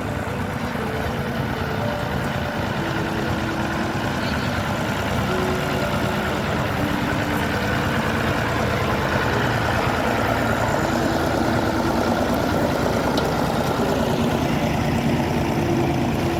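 Tractor engine running steadily with a low rumble, growing gradually louder.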